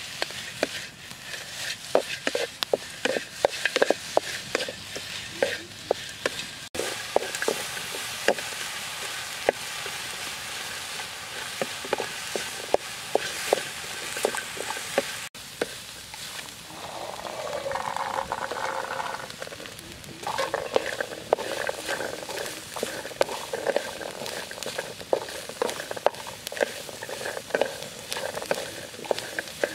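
Meat and vegetables stir-frying in a steel wok over a wood fire: steady sizzling, with a wooden spatula scraping and knocking against the pan over and over.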